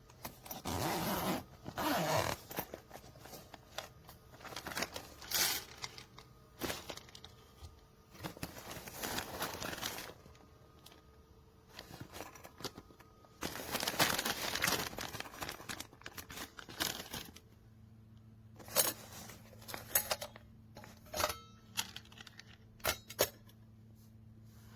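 Rustling and scraping of things being handled, in several stretches, then a steady low hum with a few sharp clicks near the end.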